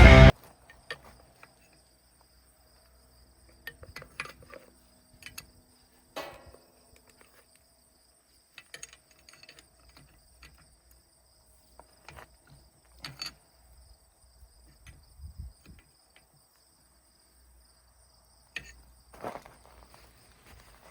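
Music stops abruptly at the start, then a quiet stretch with scattered faint clicks and knocks, like small handling noises, over a faint steady high whine.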